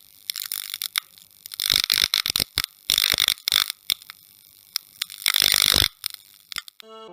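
Irregular bursts of hissing, crackling noise broken by sharp clicks, stopping abruptly as music begins near the end.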